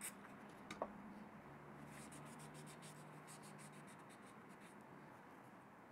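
Faint cloth rag wiping oil off a metal lathe cross slide: a quick run of short rubbing strokes in the middle, after a small click about a second in.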